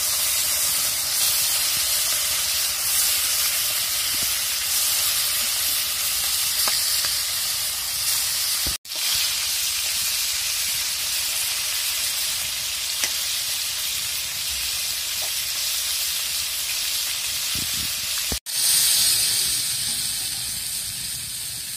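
Pieces of grass carp and nola fish frying in hot oil in an iron karahi, a steady sizzling hiss with a few light scrapes of a metal spatula turning them. Near the end, after a cut, a louder hiss from a fish and potato curry simmering in the same pan.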